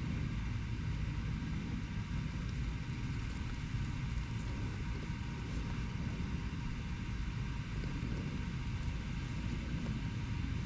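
Steady low rumble of distant urban road traffic, with no distinct events standing out.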